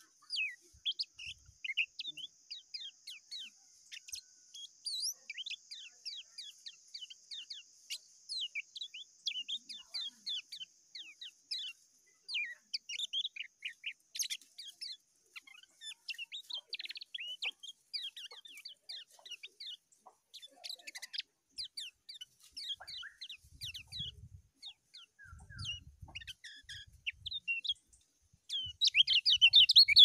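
Kecial kuning, a yellow white-eye, singing without pause: a rapid stream of short, high, downward-sweeping chirps that turns much louder and denser near the end. A steady high hiss runs under the first third, and there are a few soft low thumps near the end.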